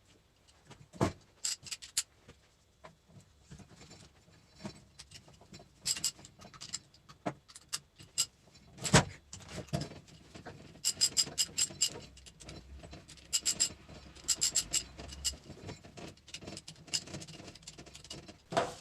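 Metal tools and parts clicking, clinking and knocking on a hydraulic control valve being reassembled, with a couple of heavier knocks and runs of quick, evenly spaced clicks in the middle and later on.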